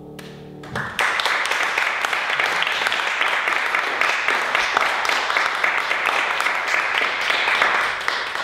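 The last piano chord dies away, then an audience breaks into steady applause about a second in.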